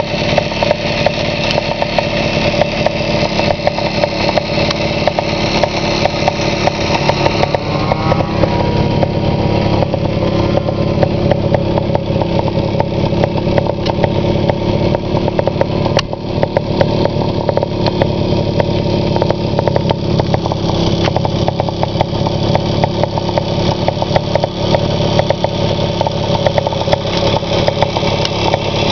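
Vintage Yamaha snowmobile's two-stroke engine running steadily as the sled rides through powder snow.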